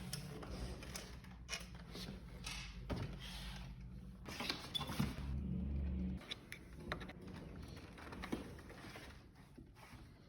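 Scattered metal clicks, knocks and creaks of a wrench working the scooter's front axle nuts loose. A low steady hum runs underneath and swells for about a second a little after the middle.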